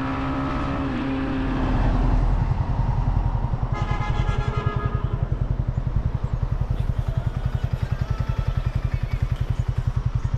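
Motorbike engine running on the move: a steady hum that turns about two seconds in into a fast, even low throbbing. A horn sounds for about a second around four seconds in.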